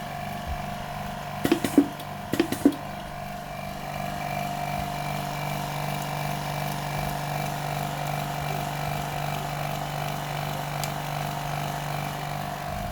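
A steady machine hum, with two short clusters of sharp clicks and knocks about a second and a half and two and a half seconds in; the hum grows slightly louder from about four seconds in.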